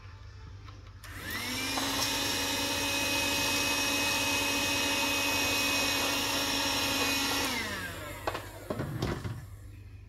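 Cordless handheld wet-and-dry vacuum cleaner switched on about a second in, its motor whining up to speed and running steadily for about six seconds, then switched off and winding down with a falling whine. A few knocks follow near the end.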